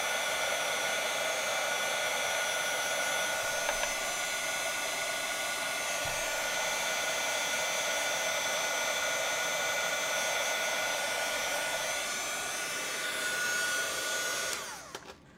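Handheld craft heat embossing tool running steadily, its fan blowing with a steady whine as it melts clear embossing powder. It is switched off near the end, and its whine falls away as the fan spins down.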